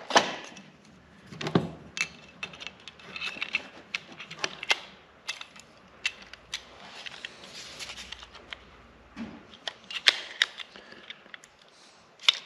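Plastic and metal clicks and snaps of a Milwaukee M12 cordless stapler's staple magazine and feed follower being handled and worked open and shut, at uneven intervals with a few sharper snaps.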